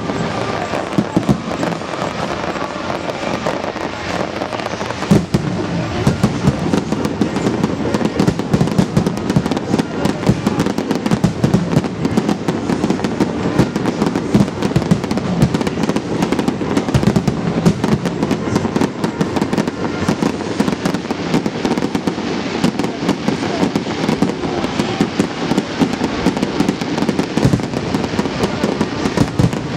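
Large aerial fireworks display: a dense, unbroken barrage of shell bursts, many sharp pops and bangs each second with no let-up.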